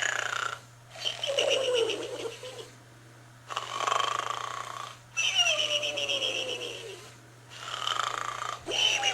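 Pig snoring: a series of long snores, about one every one and a half to two seconds, several with a falling tone, with short quiet pauses between them. A faint steady low hum lies under it.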